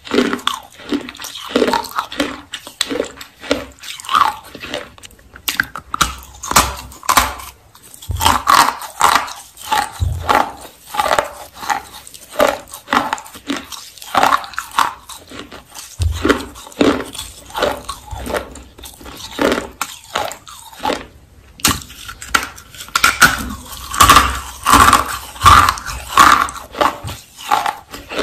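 Close-up mouth sounds of someone eating baked clay rolls: crisp crunching bites and steady chewing, about two chews a second, with several louder sharp crunches as pieces are bitten off.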